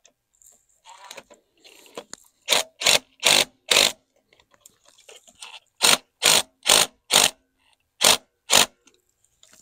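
Cordless electric ratchet run in short trigger bursts, about ten in three groups of four, four and two, tightening the EGR valve's mounting bolts.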